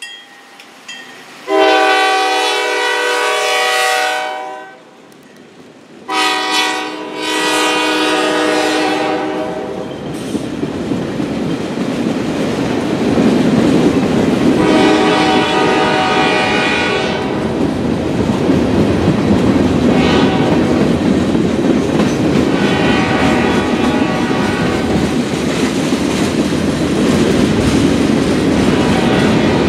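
Diesel freight locomotive's air horn sounding two long blasts at a grade crossing. A long CSX freight train of boxcars and gondolas then rolls past with a steady rumble and wheel clatter over the rail joints, while more horn blasts, one of them short, sound fainter through it.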